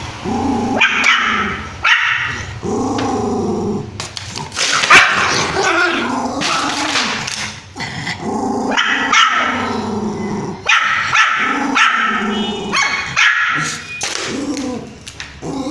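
A puppy barking and growling angrily in a continuous string of short barks.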